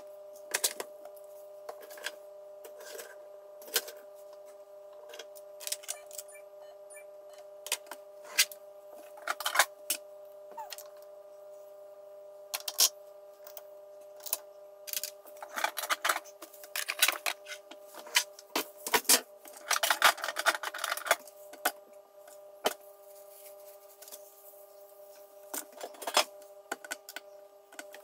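Small hard makeup items, plastic palettes, compacts and lipstick tubes, being picked up, set down and slotted into an acrylic organiser on a vanity table: scattered clicks and knocks, with a busier run of clatter a little past the middle. A faint steady hum lies underneath.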